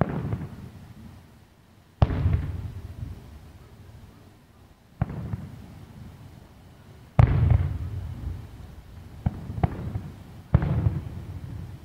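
Aerial fireworks shells bursting: five booms a few seconds apart, each trailing off in a rumbling echo, with two sharper cracks between the last two.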